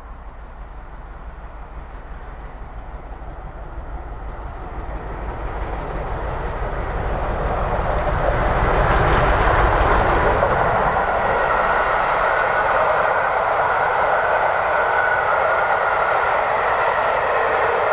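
Bulleid Merchant Navy Pacific 35028 'Clan Line', a three-cylinder steam locomotive, hauling an express train as it approaches and passes. The sound builds steadily and is loudest about halfway through as the engine goes by, then the coaches roll past with a steady rush.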